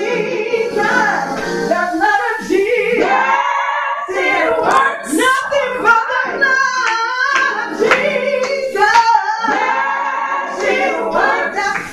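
Several women singing a gospel song together as a vocal group.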